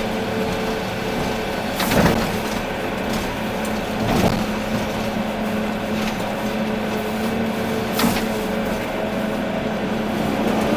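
Volvo EC380D excavator's diesel engine running steadily under work, with a few sharp knocks about 2, 4 and 8 seconds in.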